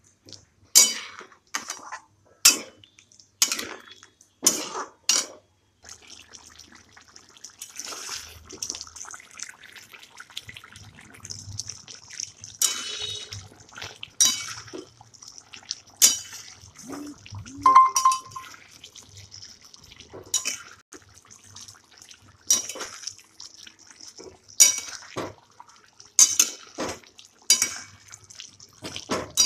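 A spatula knocking and scraping against a frying pan while stirring potato cubes in a thick yogurt and cashew-paste sauce. There are sharp knocks about once a second at first, then irregular scrapes over a faint steady hiss from the cooking pan.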